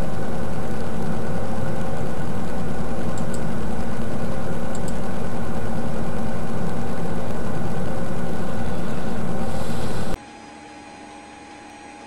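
Steady, loud machine-like drone with a constant hum, which cuts off suddenly about ten seconds in, leaving only a faint hiss with a thin hum.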